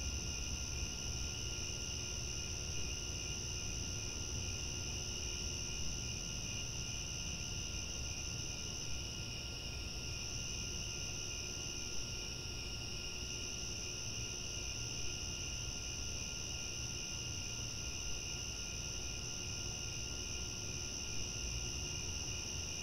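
Crickets chirping steadily in a dense chorus at night, with a faint low rumble underneath.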